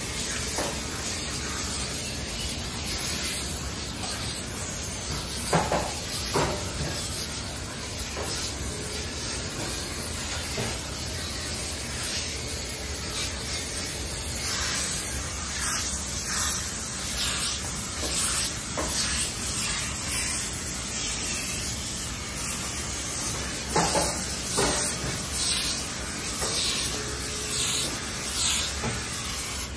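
Steam iron hissing steadily, surging in repeated bursts of steam as it is worked over tent fabric, with a few sharp taps.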